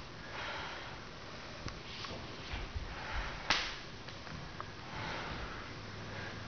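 Bare feet stepping and pivoting on a wooden floor during a kung fu form, with a few short breaths and one sharp smack about three and a half seconds in.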